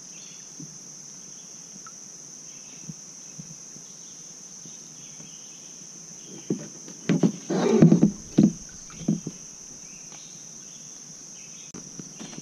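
Steady high-pitched drone of insects, with a cluster of knocks and scrapes about seven to nine seconds in: plastic kayak and paddle bumping against a rock.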